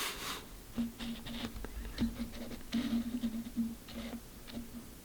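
Hands handling paper and packaging: light rustling, scratching and small irregular taps, with a faint low hum that comes and goes.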